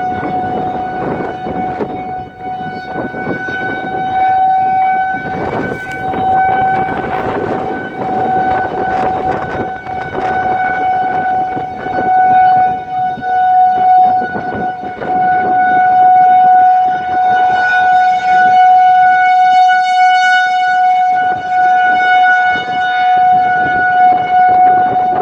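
Federal Signal 2001 rotating tornado siren sounding a steady single tone during its test. It swells and fades in loudness as it turns, loudest and brightest in the second half, with rough noise underneath.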